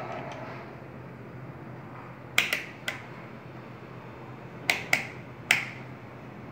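Sharp plastic clicks from a clamp multimeter's rotary selector dial being turned: three together about two and a half seconds in, and three more around five seconds.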